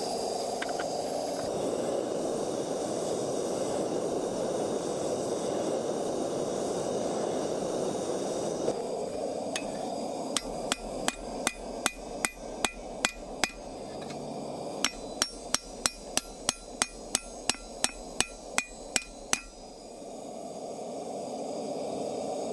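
Hand hammer striking a red-hot steel hex bar on an anvil, forging the chisel's bevelled tip: two runs of quick blows, about three a second, each with a short metallic ring, after a steady rushing noise that fills the first eight seconds and comes back near the end.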